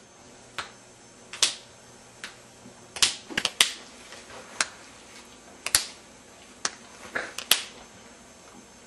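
Sharp snapping clicks, about fifteen at uneven intervals, some in quick clusters about three seconds in and again a little past seven seconds in.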